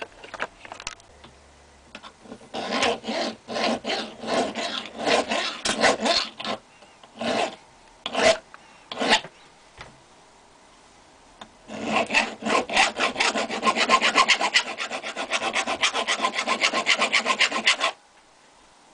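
Hand file rasping across a small metal part clamped in a bench vise. Irregular strokes for several seconds, a pause, then a fast run of short strokes, several a second, that stops suddenly near the end.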